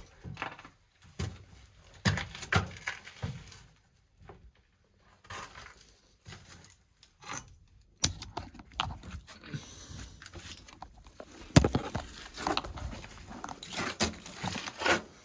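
Irregular scraping, crunching and knocking of a person crawling through a tight crawl space, with one sharp knock about eleven and a half seconds in.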